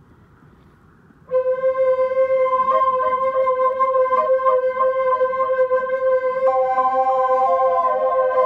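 Wooden Native American-style flute coming in a little over a second in with one long held low note, ornamented with quick grace-note flicks, then a higher note joins near the end and steps down in a short descending phrase.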